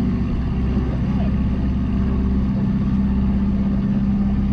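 Small motorboat's engine running at a steady pitch while the boat is under way.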